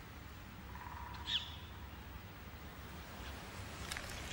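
A bird giving short, high chirps, one about a second in and another at the very end, over a steady low background rumble.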